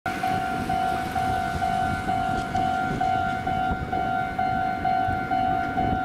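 Japanese level-crossing warning bell ringing its 'kan-kan', one steady note repeating about twice a second: the signal that a train is approaching and the barriers are closing.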